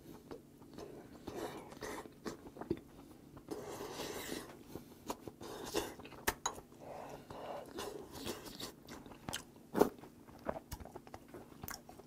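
Close-up chewing and mouth sounds of someone eating seonji haejangguk (ox-blood curd hangover soup) with rice, with irregular small clicks and smacks.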